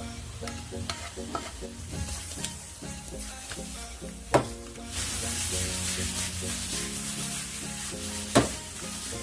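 Food sizzling and being stirred in a hot frying pan. A utensil knocks sharply against the pan twice, about four and eight seconds in. The sizzle grows louder about five seconds in.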